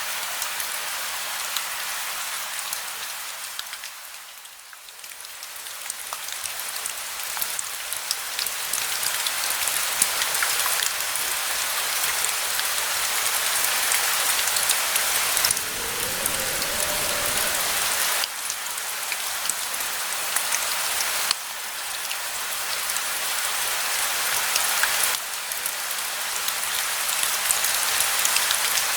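Steady rain hissing, with fine raindrop patter, fading briefly about four seconds in. A short low rumble comes around the middle.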